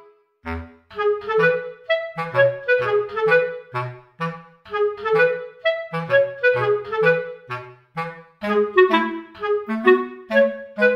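Instrumental background music: a bouncy melody of short notes over a bass line, with a brief pause just after the start.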